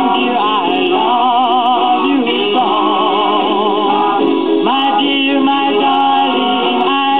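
A 78 rpm shellac record of a vocal group singing, with held notes in vibrato and sliding pitches, played on a 1947 Sears Silvertone model 7070 tube radio-phonograph through its rebuilt crystal cartridge.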